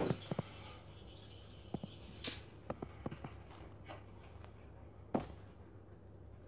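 Faint, scattered clicks and taps from scrolling and clicking on a laptop, with one louder click about five seconds in.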